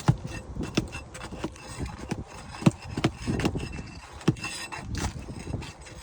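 A roof shingle being pried up and its nails worked loose: irregular knocks, clicks and scrapes, with a few sharp louder raps.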